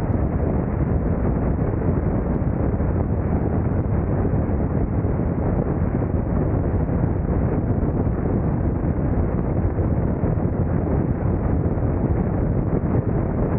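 Wind buffeting the microphone of a motorcycle-mounted camera at highway speed: a steady, heavy rushing rumble that covers any engine sound.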